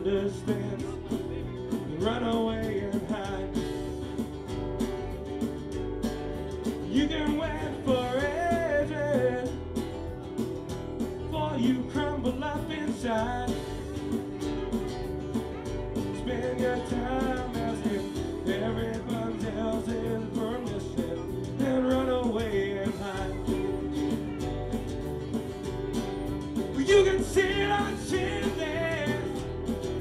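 Live band playing electric and acoustic guitars, with singing over them.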